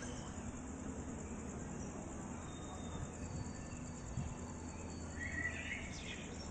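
Low, steady outdoor ambience with a constant hum and faint distant voices, and a short high chirp near the end.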